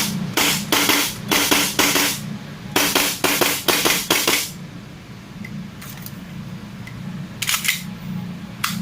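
WE Hi-Capa gas blowback airsoft pistol, fitted with a lightweight CNC aluminium blowback housing, firing a quick string of semi-auto shots, each a sharp crack as the slide cycles. About ten shots come in the first four and a half seconds, then after a pause two more close together and a last one near the end.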